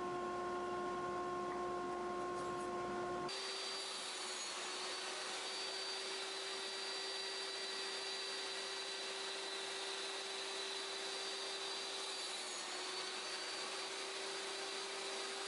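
Steady whir of woodshop machinery, a table saw and its dust-collection hose running, with an abrupt change in tone about three seconds in.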